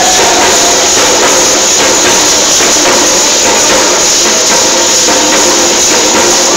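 Many parachicos' chinchines, metal rattles, shaking together in a loud, steady, dense clatter, with faint steady tones beneath.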